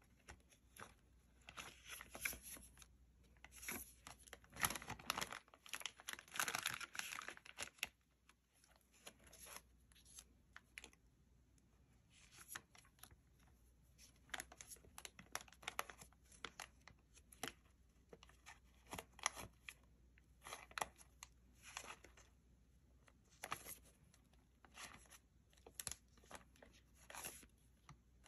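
Faint, intermittent rustling and crinkling of paper sticker sheets being handled and slid into a clear plastic zip bag, in short scattered bursts that come thicker in the first several seconds.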